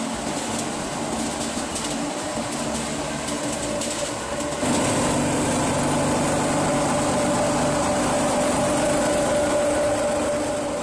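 A screw conveyor's electric motor and worm gearbox running steadily as the conveyor carries feed mash into the pellet mill's hopper: a steady machine hum with several constant tones. It grows louder and fuller about halfway through, with light rattling ticks before that.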